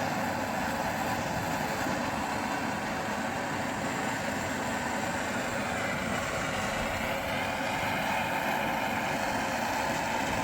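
Handheld gas torch burning with a steady hiss, heating the small end of a connecting rod so the press-fit wrist pin will slide in.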